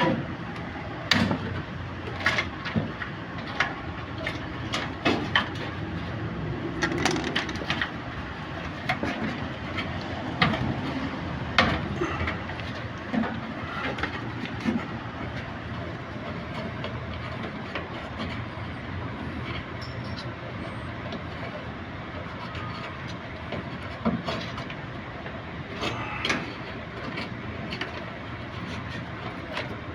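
Hand work on an old air conditioner's metal parts: scattered knocks, clicks and clatter over a steady background noise, busiest in the first half and again near the end.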